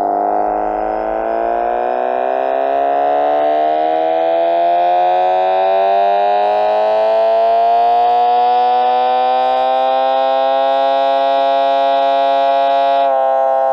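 Homemade electronic engine-sound imitation played through a speaker. A motor spins a patterned cardboard disc in front of an infrared photoreflector, and the signal is amplified. The buzzy, engine-like tone climbs steadily in pitch for about eight seconds like an engine revving up on a dyno, holds at high revs, then drops slightly near the end.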